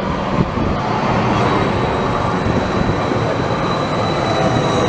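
A Siemens Combino low-floor tram rolls past close by: its wheels rumble on the rails, and about a second in a steady high-pitched whine starts and holds on.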